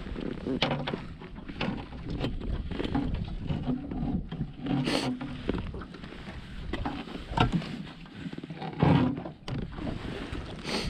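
Wind buffeting the microphone and water slapping against a small fishing boat, with several sharp knocks scattered through.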